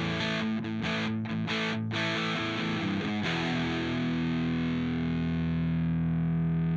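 Electric guitar through a TC Electronic Mojo Mojo overdrive pedal, playing a quick run of distorted notes, then a chord struck about three seconds in and left to ring out.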